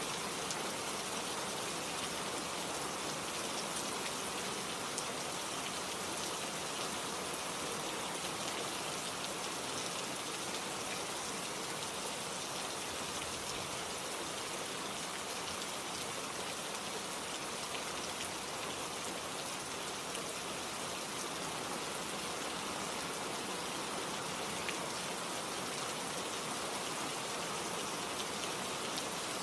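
Steady rain falling and pattering on surfaces, an even hiss of drops with faint scattered individual drop ticks.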